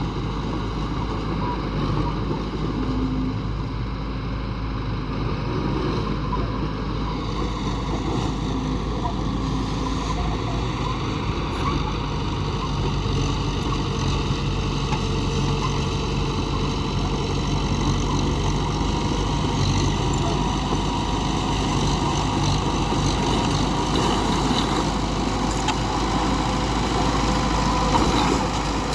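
Diesel engines of heavy road-construction machinery (dump trucks and a bulldozer) running steadily, with the engine note shifting about seven seconds in.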